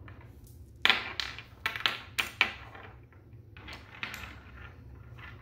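Magnetic building sticks and steel balls clicking together and tapping on a wooden tabletop as they are pulled apart and set down: a quick run of sharp clicks about a second in, then a few softer taps.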